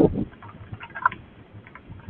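Squall-line wind gusts buffeting the microphone: a gust dies away at the start, leaving a lull with faint scattered ticks and taps from the storm.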